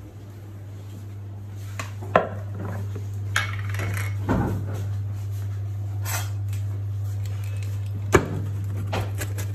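Pizza peels and kitchen utensils knocking and clattering against a marble counter, a few separate sharp knocks, over a steady low hum that swells about a second in.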